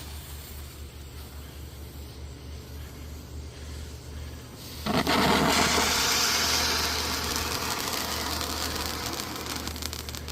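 Miracle Fireworks' AK-47 Pew Pew fountain catching about five seconds in and spraying with a sudden loud hiss that eases off slowly.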